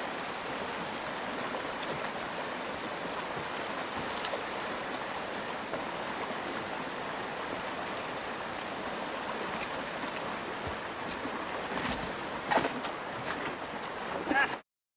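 Steady rush of river water flowing around a wading hiker, with a couple of louder splashes near the end.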